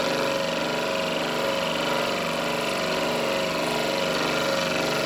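Scroll saw running steadily, its blade stroking up and down as it cuts through a thick wooden block, fed slowly near the end of the cut.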